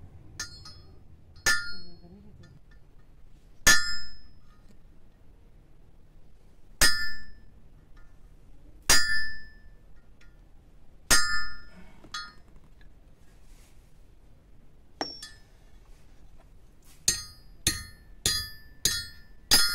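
Hammer striking a metal rod on a small steel stand used as an anvil: sharp, ringing metallic blows, single ones every second or few, then a quicker run of five blows about half a second apart near the end.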